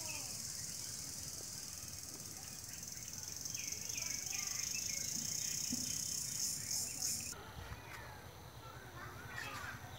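A dense, steady chorus of insects with birds chirping over it; the insect hiss cuts off sharply about seven seconds in, leaving quieter birdsong.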